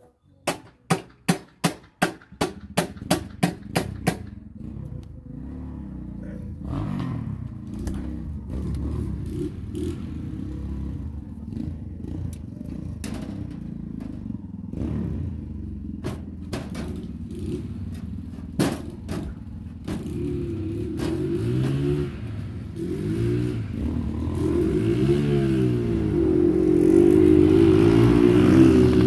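A quick run of sharp, evenly spaced knocks, about three or four a second, for the first four seconds. Then a small vehicle engine runs, its pitch rising and falling as it revs, getting louder towards the end.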